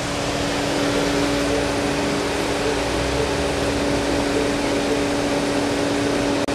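A steady mechanical hum with a constant pitch, over a background of street noise.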